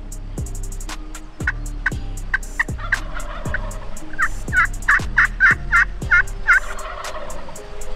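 A wild turkey calling: a run of about a dozen short yelping notes, loudest in the middle, over background music with a steady kick-drum beat.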